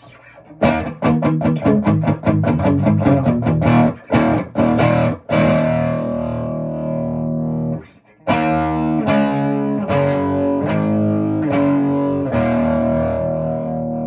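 Overdriven electric guitar played through a modified Sunn 200S tube amp with an added 12AX7 preamp stage and its cathode follower switched out of the circuit. Fast even strums for about five seconds, then a chord left ringing, a short break, and a run of held chords.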